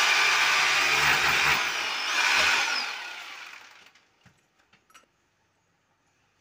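Electric drill boring into a masonry wall, running at full speed for about three seconds, then the motor spinning down after the trigger is released. A few light clicks follow.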